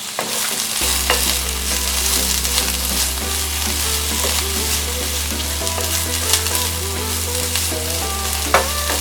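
Diced vegetables sizzling steadily in a hot pan, with a few sharp clicks near the end.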